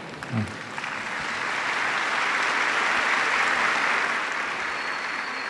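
Audience applause that swells over the first couple of seconds, holds, eases a little, and then cuts off suddenly.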